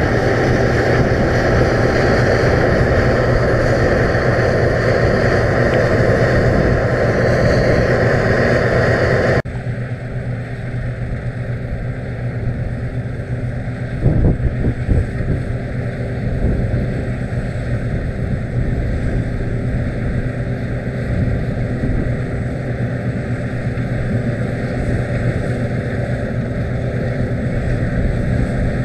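Claas Lexion 670 TT combine harvester running close by while harvesting, a steady loud machine hum; about a third of the way in it drops suddenly to a quieter, more distant machine sound with wind rumbling on the microphone.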